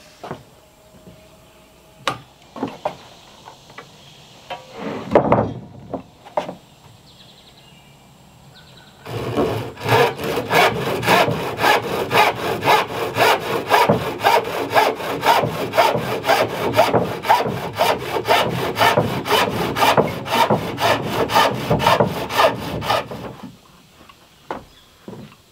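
Handsaw cutting across a wooden board in fast, even back-and-forth strokes for about fourteen seconds, starting about nine seconds in. Before it come a few scattered knocks and clunks.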